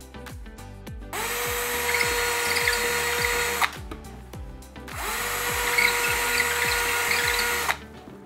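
Cordless drill with a masonry bit boring into a plastered wall, in two bursts of about two and a half seconds each with a short pause between; the motor whine comes up to speed and holds steady through each burst. Background music with a steady beat runs underneath.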